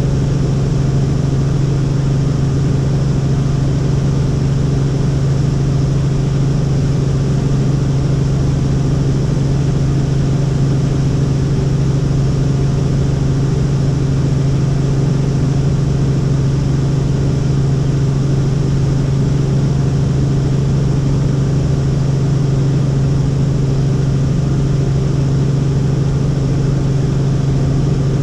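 Helicopter in flight: a loud, steady drone of rotor and engine with a strong low hum that does not change.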